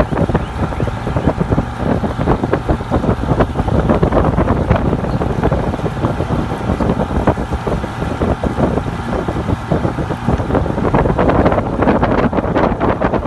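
Wind buffeting the phone's microphone: a loud, uneven rumble with gusty crackling.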